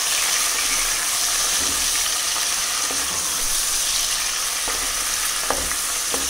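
Raw chicken pieces sizzling in hot oil with fried onions in an open pressure cooker, stirred and turned with a wooden spatula; a light knock about five and a half seconds in.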